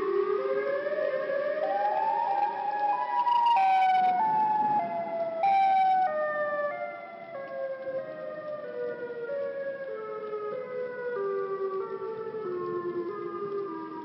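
Broken outdoor tornado siren sounding a strange, uneven wail. Its pitch climbs in jerky steps for the first few seconds, then steps down for most of the rest, and starts to climb again near the end.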